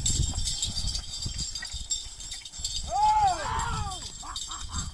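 Yoked pair of bulls dragging a weighted block over dirt: a rough rumble of hooves and dragging. About three seconds in a man gives one loud, drawn-out shout urging them on, followed by a few short calls.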